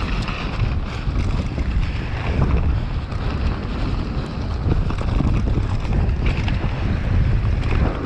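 Wind buffeting a GoPro 7's microphone as a downhill mountain bike runs fast down the track, a steady low rumble with scattered clicks and knocks from the bike and tyres over rough ground.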